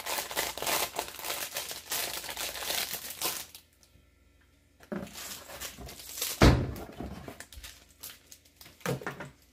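Clear plastic packaging bag crinkling as it is handled, rustling densely for about three and a half seconds. After a short quiet gap comes a single loud thump about six and a half seconds in, followed by a few lighter rustles.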